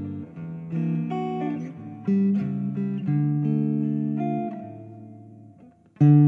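Acoustic guitar music: picked notes and chords that ring and fade, dying away to almost nothing about five and a half seconds in, then a loud new chord near the end.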